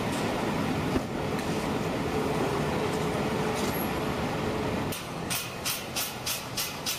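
Steady traffic noise at a busy roadside, with vehicles running past. About five seconds in the noise drops, and a quick run of sharp taps follows, about four a second.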